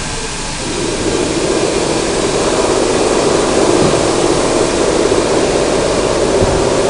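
Loud, steady machine noise that swells up about a second in and holds.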